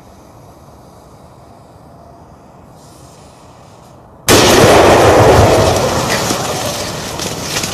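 A Retorno 70 firecracker salute packed inside a large pumpkin explodes about four seconds in, after a stretch of quiet background. The blast is sudden and very loud, stays loud for about a second, then slowly fades.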